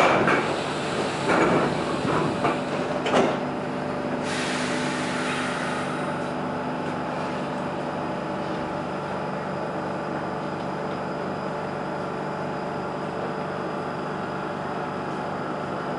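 Stockholm Metro C6 subway car standing at a station. There is a sharp knock at the start and a few clunks over the next three seconds, then a hiss of air about four seconds in. After that the stopped train gives a steady hum.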